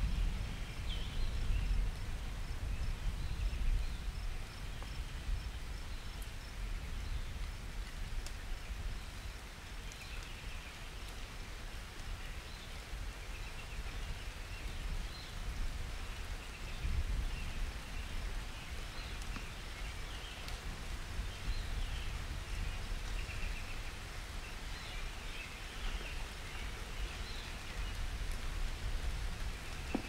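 Steady outdoor ambience: a low rumbling noise with scattered faint high chirps.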